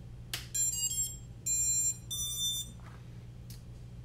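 A click as the quad is powered up, then the brushless motors play the ESC start-up beeps: a quick run of stepped tones followed by two longer beeps, the signal that the ESCs have power and see a throttle signal.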